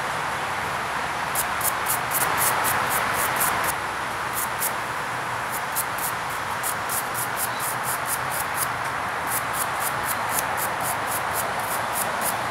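Insects chirping in a rapid high-pitched pulse, about four chirps a second, over a steady background hiss; the chirping starts a little over a second in and pauses briefly around the middle.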